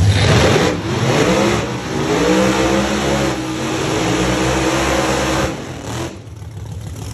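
Drag-racing car's engine at full throttle, accelerating hard. Its pitch climbs and drops back at each of about three gear shifts, and it falls away about six seconds in.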